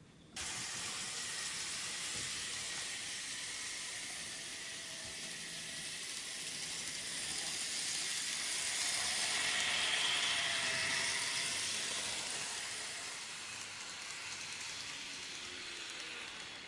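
N-gauge model trains running on the layout track: a steady hissing rush of wheels and small motors. It starts suddenly, grows to its loudest about ten seconds in as a train comes close, then eases off.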